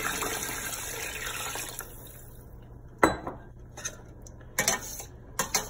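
Water poured from a glass jug into a steel cooking pot of fried chicken and spices, a steady splashing pour that stops about two seconds in. Then several sharp clinks and knocks of a metal spoon against the steel pot as the mixture is stirred.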